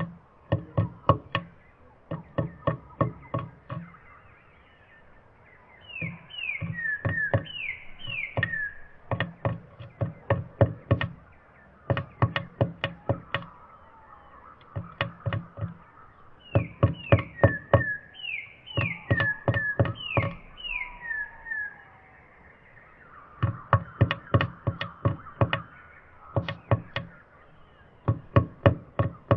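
Bursts of rapid knocks from a tit pecking at the wooden nest box, several taps a second, with pauses between bursts. Short, high down-slurred bird calls come in small groups between the taps.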